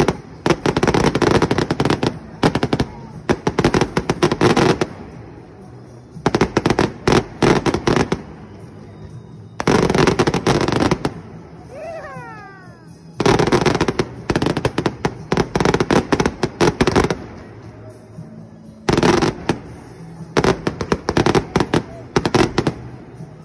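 Fireworks display: volleys of rapid popping and crackling from shells and fountains, each volley lasting one to three seconds, about seven in all with short lulls between them.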